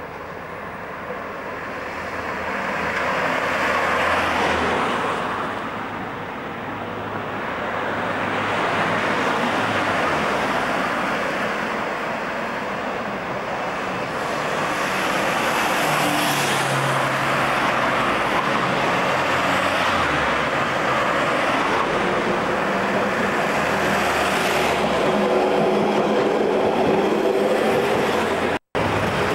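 Road traffic on a suburban street, cars passing one after another so that the tyre and engine noise swells and fades every few seconds. The sound drops out for an instant near the end.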